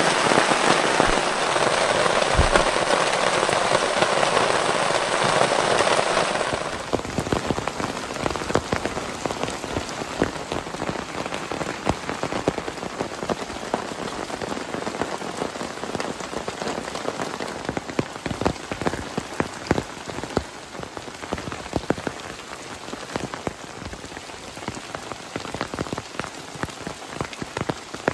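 Heavy rain falling. About six seconds in the dense downpour drops off abruptly, giving way to lighter rain in which separate drops are heard striking close by.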